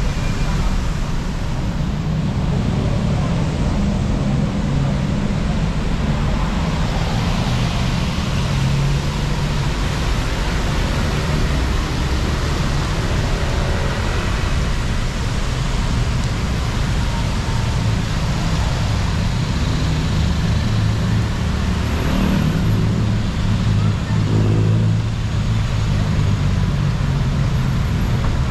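Steady traffic on a rain-soaked city road: cars and motorbikes passing on the wet surface, with rain falling.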